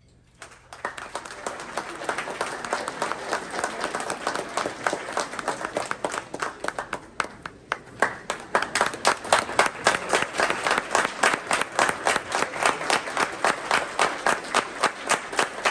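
Crowd applauding, starting about half a second in as the music has died away. After a brief dip it grows louder about eight seconds in and settles into an even rhythm of about three claps a second.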